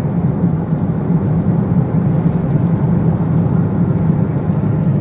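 Steady low drone of a car driving at highway speed, heard inside the closed cabin: engine and tyre noise with no change in pitch.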